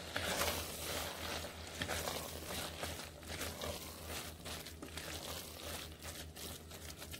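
A spatula stirring a thick mashed-vegetable mixture in an Instant Pot's steel inner pot: irregular soft scrapes and knocks against the pot.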